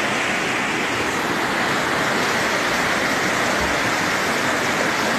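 Muddy flash-flood torrent rushing down a street, a steady rush of water from a small stream swollen by days of continuous rain.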